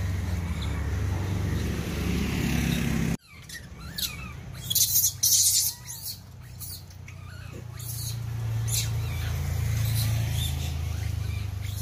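Rhesus macaques eating bananas and watermelon: a cluster of short crackling, crunching noises with faint squeaks, over a steady low hum. The sound drops out abruptly about three seconds in, and the hum builds back up a few seconds later.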